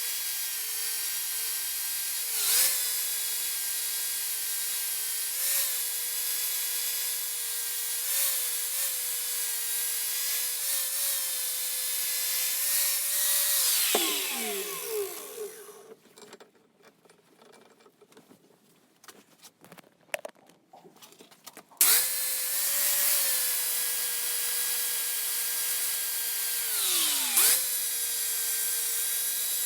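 A small high-speed power tool motor running with a steady whine that dips briefly each time it is pressed into the work, spinning down about halfway through. A few seconds of light clicks and handling follow, then the tool starts again abruptly and runs on with the same brief dips.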